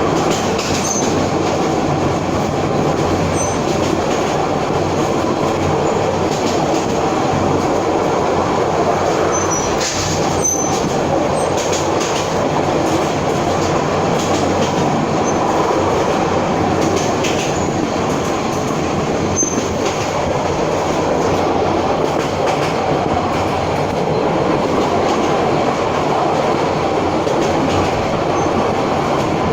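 Passenger train running steadily along the track, heard from on board: a continuous rumble of wheels on rails, with a few faint clicks partway through.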